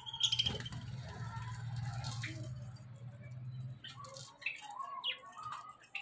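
Budgerigars chirping and warbling in short calls while feeding at a seed dish, over a steady low hum that stops about four seconds in.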